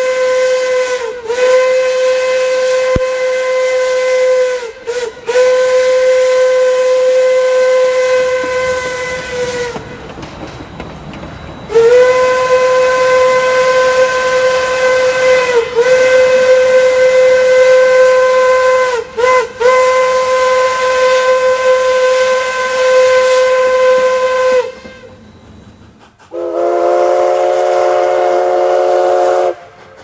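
Denver & Rio Grande Western 463's hooter steam whistle blowing a string of long blasts on one steady deep note, with a few quick toots between them; each blast sags a little in pitch as the valve opens and closes. Near the end a different whistle, the Nathan five-chime on Cumbres & Toltec 489, sounds a chord of several notes for about three seconds.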